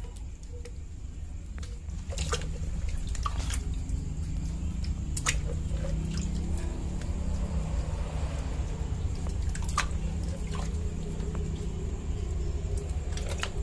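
Snails being washed by hand in a bucket of water: water sloshing and splashing, with sharp clicks of the shells knocking together every so often.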